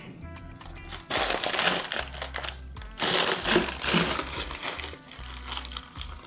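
Plastic zip-top freezer bag crinkling and rustling as it is handled, in two loud bursts about a second and three seconds in, over background music.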